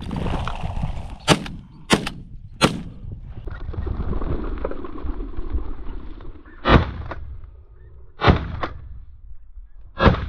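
Shotgun fired at a flushing covey of partridges: a single report about two-thirds of the way in, two quick shots close together a moment later, and another near the end. Three sharper cracks come in the first few seconds.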